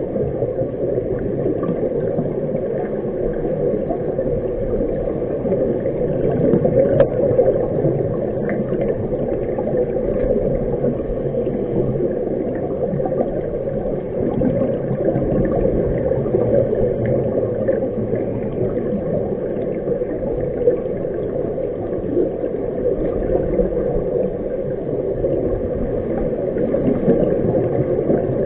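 Steady, muffled underwater noise: a low rushing of water heard underwater, with a few faint clicks.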